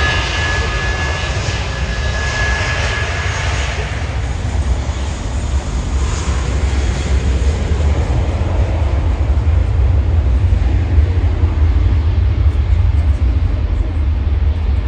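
Jet airliner engines running nearby: a high steady whine that fades out in the first few seconds over a continuous deep rumble and rushing noise that swells slightly later on.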